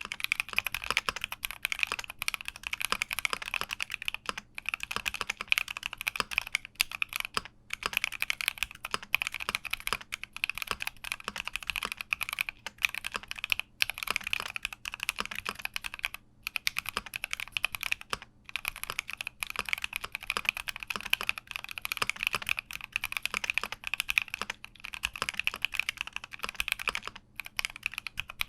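Continuous fast typing on a Keychron Q60 mechanical keyboard, a quick run of key clacks broken by a few brief pauses.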